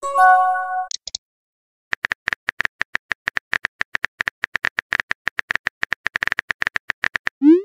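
Simulated phone keyboard clicks of a texting app: a rapid, even run of key taps as a text message is typed, after a short electronic chime as a message bubble appears. Near the end a quick rising whoosh of a message being sent.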